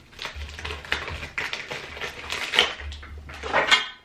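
Scissors cutting open a plastic poly mailer: a run of irregular crisp snips and plastic crinkling, loudest about two and a half and three and a half seconds in.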